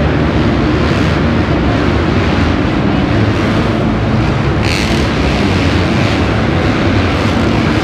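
A pack of motocross bikes racing around an indoor dirt track, many engines revving and running together under the arena roof, with a brief sharp hiss about five seconds in.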